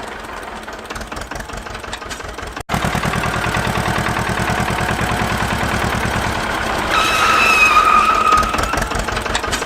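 Tractor engine running with a fast, even chug. It cuts out for an instant a little under a third of the way in and comes back louder. A high whine joins it for about a second and a half near the end.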